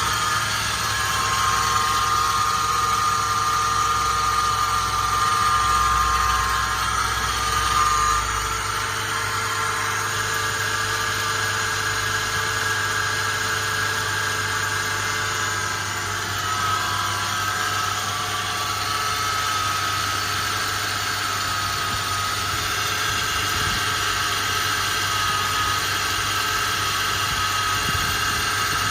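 2007 Toyota FJ Cruiser's 4.0-litre V6 idling, with a steady high-pitched whirring above the engine note, which the owner guesses is a failing idler pulley.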